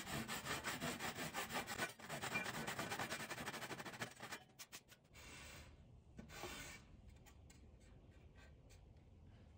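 Western handsaw cutting across a wooden board to saw a rabbet, in quick rasping strokes that stop about four and a half seconds in; after that only a few faint short sounds.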